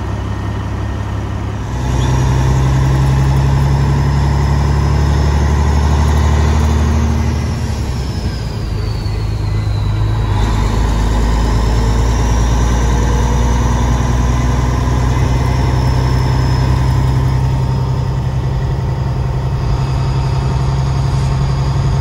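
Semi truck's diesel engine running steadily, heard from inside the cab; its level steps up about two seconds in and eases off about eight seconds in.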